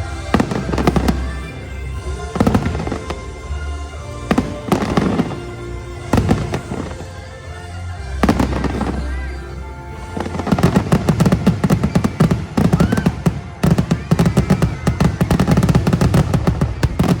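Fireworks shells bursting over orchestral show music. The bangs are spaced out at first, then from about halfway through become a dense, rapid barrage of bursts.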